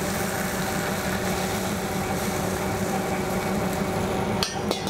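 Hot oil ladled onto a bowl of Sichuan boiled fish, sizzling over the steady drone of commercial kitchen equipment. Two sharp clinks, like a ladle against the bowl, come near the end.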